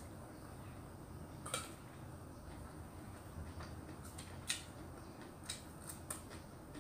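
Quiet eating: a person chewing a mouthful of food eaten by hand, with a few short soft clicks and smacks, the sharpest about a second and a half in and again about four and a half seconds in.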